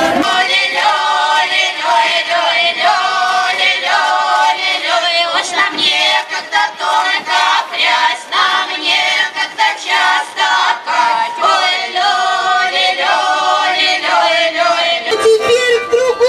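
A women's folk ensemble sings a Russian folk song together, voices only, in phrases with short breaths between them. About a second before the end the sound cuts to a different passage with crowd noise beneath.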